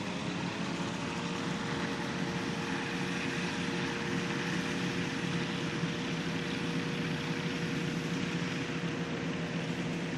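RANS Coyote ultralight's Rotax two-stroke engine and propeller running steadily. The pitch settles slightly in the first second, then holds.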